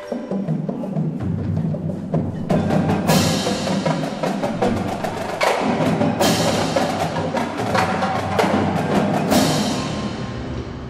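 Indoor percussion ensemble playing: a marching drumline of snare, tenor and bass drums in a dense, fast rhythm with hand cymbals, over the front ensemble's marimbas and keyboards. Three loud crashes ring out, about three, six and nine seconds in.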